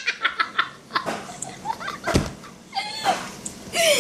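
Stifled giggling in short bursts, with a single short thump about two seconds in.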